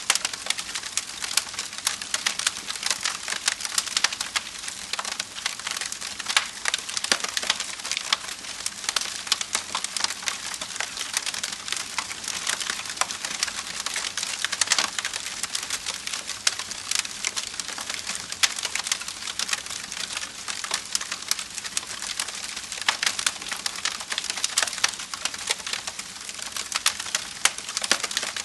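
Wood fire crackling steadily: a constant hiss with dense, irregular pops and snaps of burning wood.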